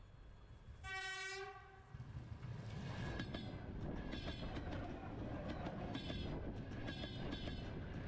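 Electric train sounding its horn in one blast of about a second, then passing close by: a rumble of wheels that builds up, with rhythmic clatter over the rail joints.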